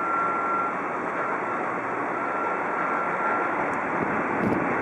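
Airbus A380 jet engines running as the airliner rolls down the runway: a steady roar with a faint high whine that comes and goes, and a brief click near the end.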